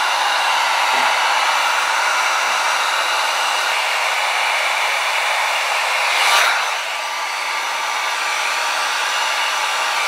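Heat gun blowing steadily at a solder-seal heat-shrink connector, melting its solder ring and shrinking the sleeve to join two thin wires. Its steady rush gets louder for a moment a little past halfway.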